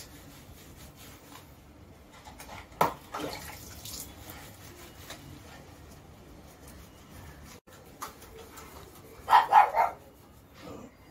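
A dog barking: one sharp single sound about three seconds in, then a quick run of about three barks near the end.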